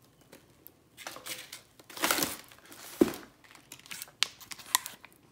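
Plastic vacuum-seal packaging on frozen fish portions crinkling as the packages are handled, loudest about two seconds in. A sharp knock comes about three seconds in, followed by a few short clicks.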